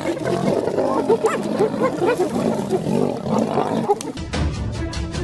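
Wild predators growling and snarling in a fight, many overlapping calls. About four seconds in it cuts abruptly to background music with a steady beat.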